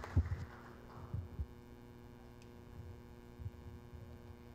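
The end of a round of applause dies away within the first second. After it, a steady electrical hum and a few low thumps remain.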